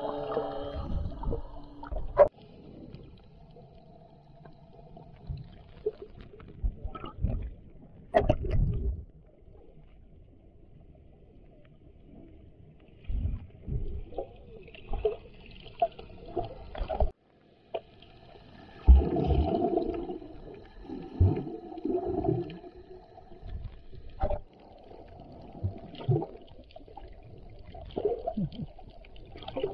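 Muffled underwater sound from a submerged camera: irregular gurgling, bubbling and dull knocks from the snorkeller's movement in the water. The sound cuts out briefly a little past halfway.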